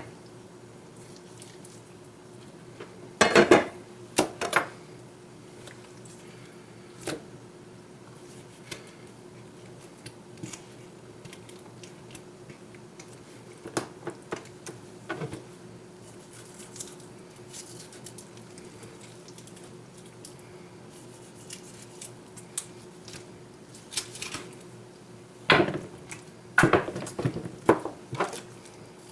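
A knife and hands working a raw chicken on a plastic cutting board: scattered taps and knocks of the blade and meat against the board, a cluster about three seconds in and several more near the end, over a faint steady hum.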